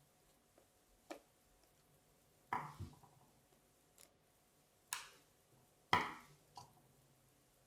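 A fishing reel and its small parts being handled during disassembly: a few sharp clicks and clacks, the loudest about two and a half and six seconds in.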